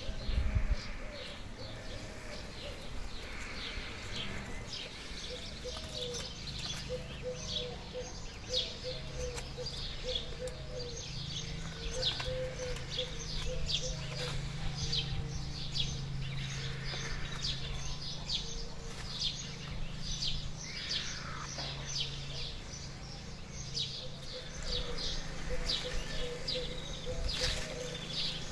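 Small songbirds chirping in quick, repeated notes, over a low steady hum, with a brief low thump right at the start.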